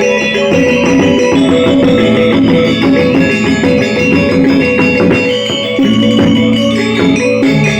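Balinese angklung ensemble playing: many pitched notes ringing and overlapping in a busy, steady stream, with a shimmering, rattling quality.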